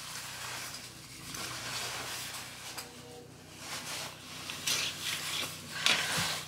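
Rustling and swishing of a puffy winter jacket's fabric as it is taken off and the arms are pulled out of the sleeves, louder twice near the end.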